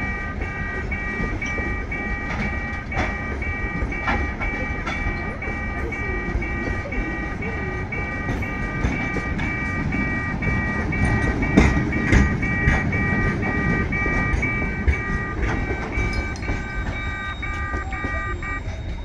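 Loaded freight wagons rolling past with a low rumble and sharp wheel clacks over the rail joints. A level-crossing warning bell rings about three times a second over it and stops near the end, once the last wagon has passed.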